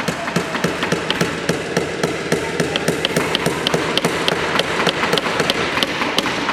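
Several hammers driving nails into wooden boards at once: many irregular, overlapping sharp taps, several a second.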